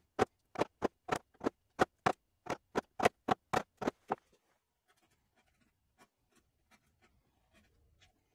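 A 1-inch wood chisel being driven into the wood with quick, evenly spaced sharp taps, about three a second, chopping a row of cuts across a hinge mortise; the tapping stops about four seconds in. After that come faint scratches and small clicks as the chisel levers out the chopped chips.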